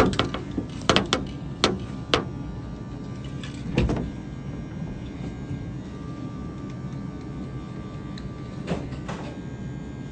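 Electric hair clippers running with a steady low buzz, with several sharp knocks and clicks in the first few seconds and two more near the end, as the phone recording them is handled and set down.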